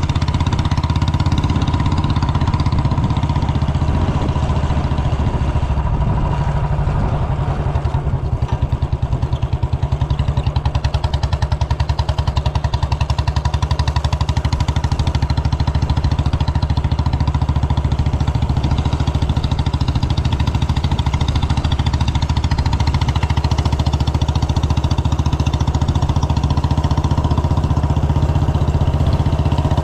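Royal Enfield Bullet's single-cylinder four-stroke engine running with its steady, fast thumping beat.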